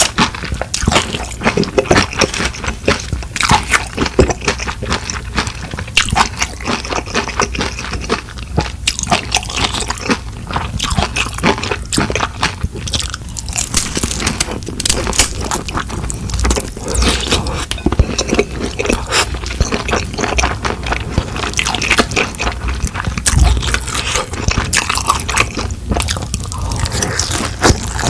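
Close-miked eating: steady chewing with many small crunches and clicks from the mouth.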